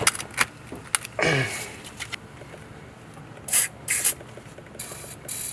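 Several short hisses from an aerosol spray can, the last one longer, with a few sharp metallic clicks in the first second.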